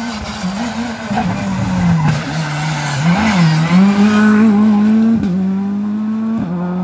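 Rally car engine as the car slows through a hairpin, revs falling, with a quick rise and fall in pitch about three seconds in. It then accelerates away through two upshifts, each a sudden drop in pitch. The engine is loudest as the car passes closest, around three to four seconds in.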